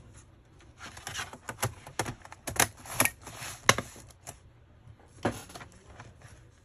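Irregular sharp plastic clicks and short clatters from hands working on a laptop, about a dozen over four seconds, the loudest near the middle.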